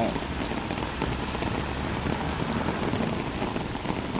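Steady rain falling, an even hiss with scattered close drops ticking through it.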